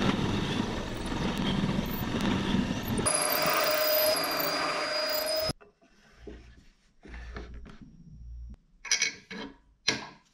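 Bench drill press running and boring through a laminated plywood rudder, a dense, steady mechanical noise that stops abruptly about five and a half seconds in. After it come quiet handling sounds and a few sharp metal clicks as a steel pintle strap is fitted.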